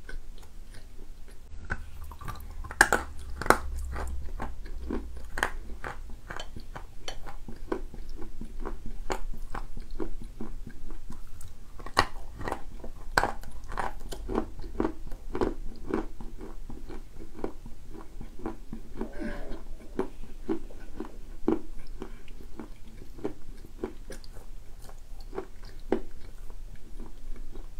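Close-up chewing and crunching of dark grey edible clay: irregular crisp crunches as pieces are bitten and ground between the teeth, with no pause.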